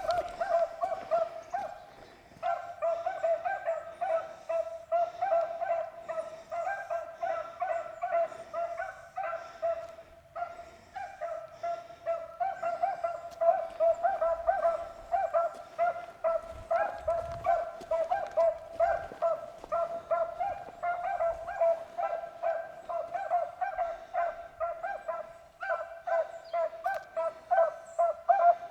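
Beagles baying on a running rabbit's track: a steady run of pitched hound barks, about two or three a second, with short breaks about two seconds in and about ten seconds in.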